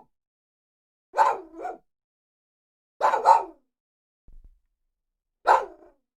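Small dog barking three times, about two seconds apart; the first is a quick double bark.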